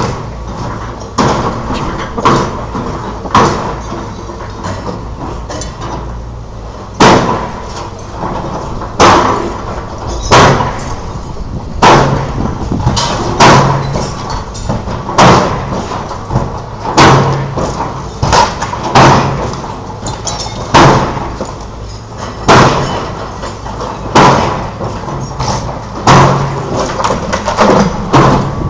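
Demolition machinery working on a building: a steady engine rumble with heavy, ringing impacts and crashes of breaking material. The impacts repeat about every two seconds, with a few weaker knocks in the first seconds.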